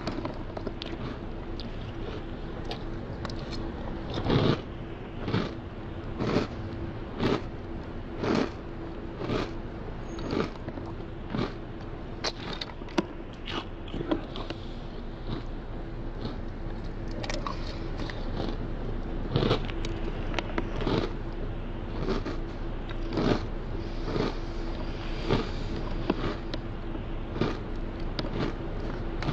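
Dry cereal being chewed, crunching in a steady rhythm of about one crunch a second, with the rustle of fingers picking through a plastic container of cereal. A faint steady hum lies underneath.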